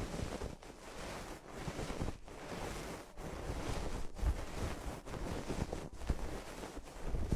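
Rubbing and brushing against a microphone in repeated strokes, about one a second, with a few dull low thumps.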